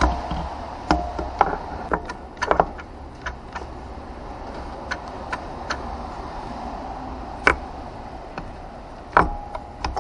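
Irregular metallic clicks and clinks of hand tools and automatic-transmission parts being handled, a few with a short ring, over a low steady hum.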